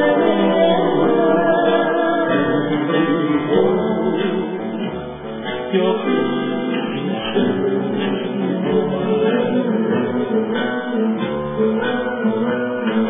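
Background music: a song with guitar and a singing voice.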